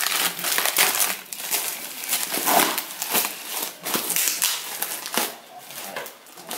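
Thin plastic wrapping crinkling and crackling as it is pulled and torn off a cardboard shipping box. The sound is busy at first and dies down near the end.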